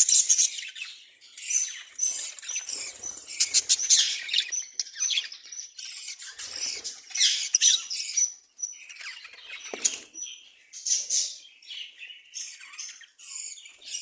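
Several budgerigars chirping and chattering, with many high, quick overlapping calls and warbles that come in bursts and lulls, and a few sharp clicks among them.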